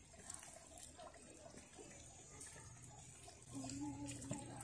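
Faint sloshing and small splashes of water as potatoes are lifted out of a plastic bowl of water and dropped into a cooking pot. About three and a half seconds in, a low steady hum starts.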